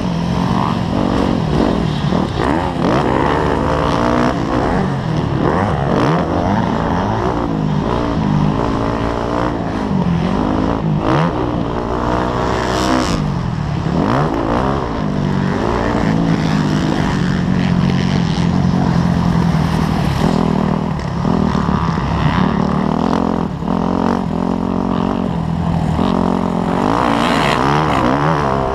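Dirt bike engine being ridden hard around a motocross track, its pitch rising as it revs up through the gears and dropping at shifts and braking, over and over, with wind rushing over the microphone.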